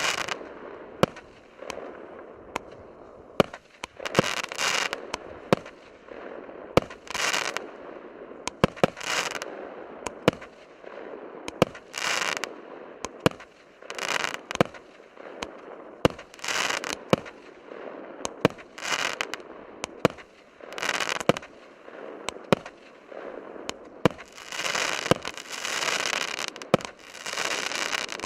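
Consumer fireworks battery (cake) firing shot after shot: a sharp bang every second or two as each shell launches and bursts, many followed by about a second of crackling stars, with a longer run of crackling near the end.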